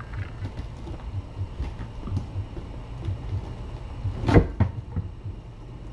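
Kittens scampering and climbing on a carpeted floor and a sisal scratching post, making soft, irregular bumps and scuffles, with one louder thump about four seconds in.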